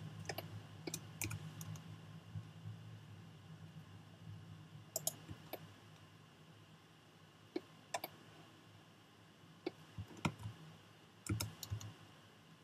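Irregularly spaced clicks of a computer mouse and keyboard, some coming in quick pairs, over a faint low hum that fades out about halfway through.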